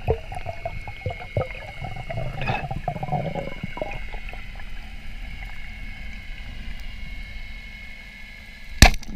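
Water gurgling and bubbling around a spearfisher's underwater camera, busiest in the first few seconds, over a steady high tone. A single sharp knock comes near the end.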